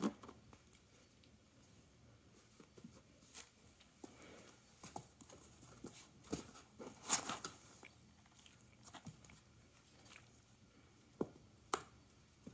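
A cat moving about in a small cardboard pizza box: faint, scattered scrapes and rustles of cardboard, with a soft thump right at the start and a longer rustle about seven seconds in.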